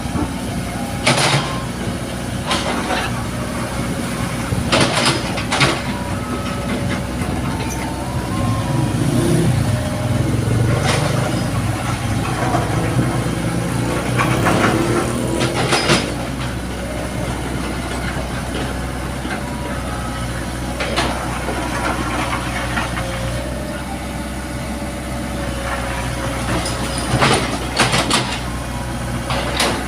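Excavator's diesel engine running steadily, working harder for a few seconds around the middle, with sharp metallic clanks every few seconds, two close together near the end.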